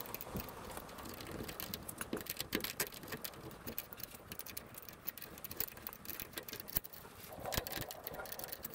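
Small, irregular metallic clicks and scrapes of a hand tool working a screw on a VW bus's rear brake backing plate to free the handbrake cable.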